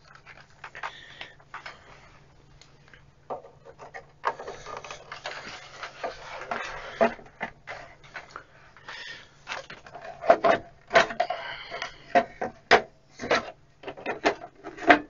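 Sheet-metal cover of a Keithley 224 current source being handled and slid onto its chassis: metal scraping and rubbing, with a run of knocks and clicks, heaviest in the second half.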